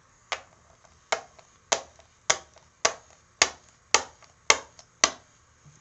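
A small plastic toy figure tapped on a hard surface in slow, even steps, like footsteps: nine sharp clicks at about two a second.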